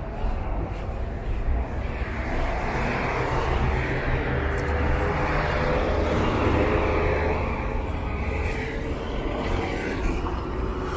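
City street traffic: a motor vehicle passing close by, its engine and tyre noise swelling to a peak partway through and then easing, over a steady low traffic rumble.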